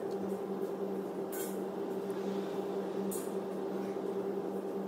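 Engine oil being poured from a jug through a funnel into the engine's oil filler, with two brief hissy splashes about a second and a half in and about three seconds in, over a steady low hum with an even pulse.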